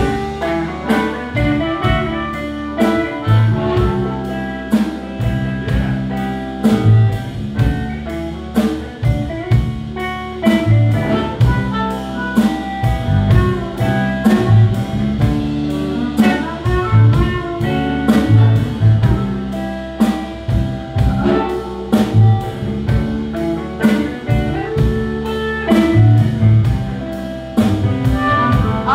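Live blues band playing a slow instrumental break: harmonica leads over electric guitar, bass and drums keeping a steady beat.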